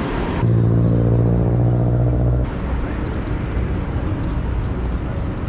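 City street traffic heard while cycling. For about two seconds near the start a large vehicle's engine gives a deep, steady hum, which cuts off suddenly and leaves an even traffic noise.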